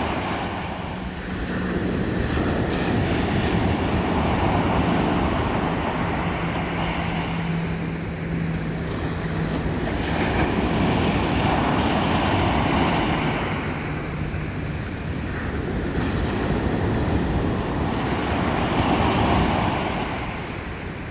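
Ocean surf breaking on a beach: a continuous rushing wash that swells and fades about every seven seconds as each wave comes in.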